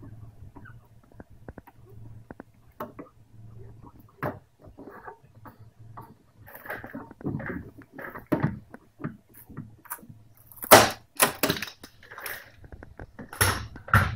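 Red pliers-style PDR glue-pulling mini lifter being squeezed on glue tabs stuck to a Lada Granta's steel front wing: small clicks and creaks of the tool being handled, building to several loud sharp cracks a little past the middle and again near the end as the glue tabs pop off the panel.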